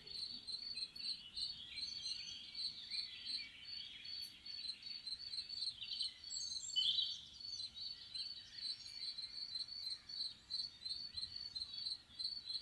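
Crickets chirping in a steady, evenly repeating rhythm, with birds singing over them.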